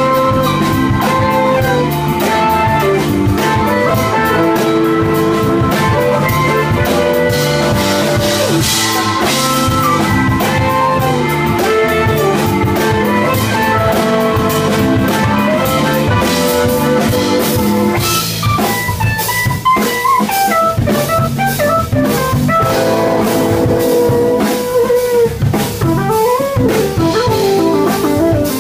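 A live band playing loudly on drum kit, electric guitar and keyboards. About two-thirds of the way in the held chords thin out, and a lead line slides up and down in pitch.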